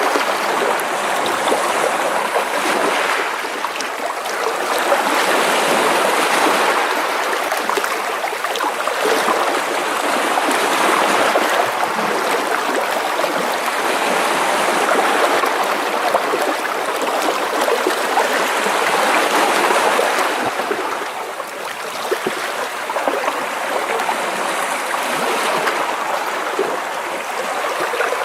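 Small sea waves washing and splashing against shoreline rocks, a continuous rushing and trickling of water that swells and eases every few seconds.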